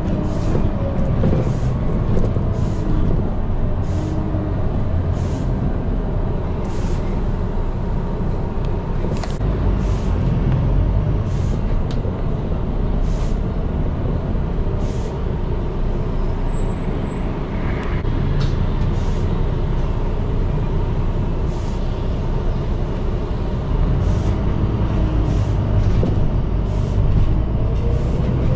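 London double-decker-route bus driving between stops, heard from inside: a steady low engine and road rumble with scattered rattles and knocks from the bodywork and fittings. The rumble grows louder near the end.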